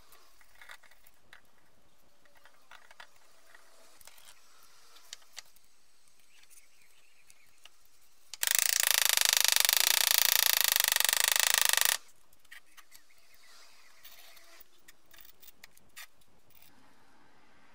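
Masking tape pulled off the roll in one long, loud continuous rip lasting about three and a half seconds, beginning a little past the middle. Around it, light clicks and taps of tape being handled and pressed onto a metal casting.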